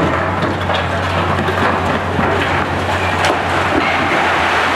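Diesel engine of a Hitachi ZX 870-3 high reach demolition excavator running steadily with a low drone. Over it come a continuous crunching, clattering noise and scattered sharp cracks of concrete and debris breaking and falling.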